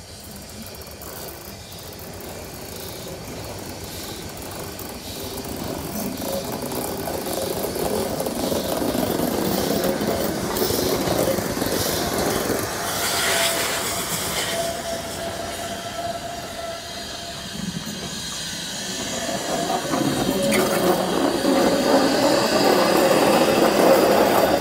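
Furka steam railway locomotive hissing steam as it stands and works at close range, fading in and growing louder toward the end, with a stronger burst of hiss about thirteen seconds in.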